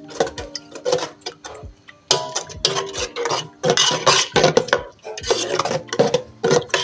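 Metal spoon stirring and scraping in a pot, with irregular clinks and scrapes against its sides, as paraffin oil is worked into melting lanette wax and cetyl alcohol.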